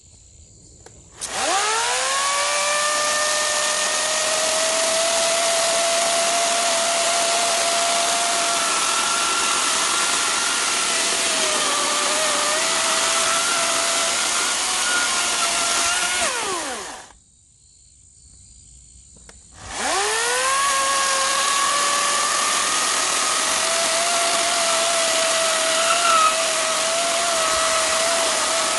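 Ego 56-volt 16-inch brushless battery chainsaw spinning up with a rising whine and cutting through a cherry log, its pitch sagging a little as the chain bites. A little past halfway it winds down and stops, then after a pause of a few seconds it spins up again and cuts on.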